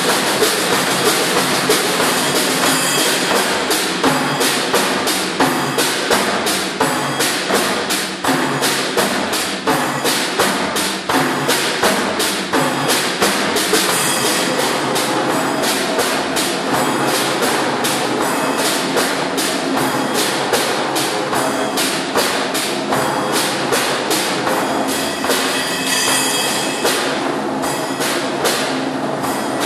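A percussion quartet playing a fast, even beat of sharp stick strikes on wood blocks and drums, about four strokes a second. The piece imitates a train's clickety-clack.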